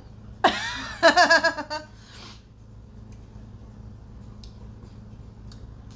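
A woman's short squeal, then a quick burst of high laughter, about half a second in. After it there is only a low steady room hum.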